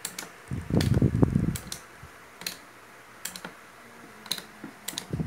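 Sharp plastic clicks about once a second: the electric drill's trigger switch being pressed and released while the circuit is checked for continuity. A louder low rubbing rumble about a second in and again near the end.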